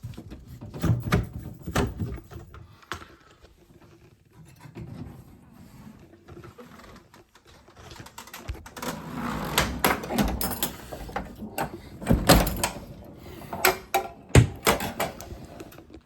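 Funhouse pinball machine being handled and tested: a string of knocks and clicks, a longer rattling stretch about halfway through, and heavy knocks near the end.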